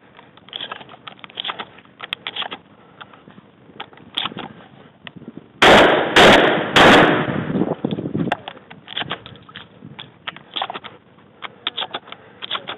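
Shotgun fired three times in quick succession, about half a second apart, each shot loud with a short ring-out. Lighter knocks and clatter come before and after the shots.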